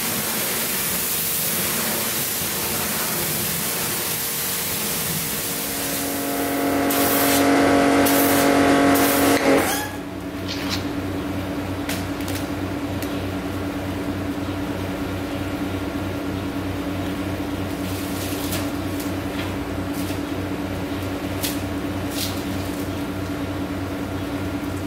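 Pressure-washer jet spraying water across a car's front end with a loud steady hiss, the machine's hum swelling and then cutting off sharply when the spray stops about ten seconds in. After that a steady machine hum continues, with scattered splashes and sloshes of a wash mitt being dunked in a soapy bucket.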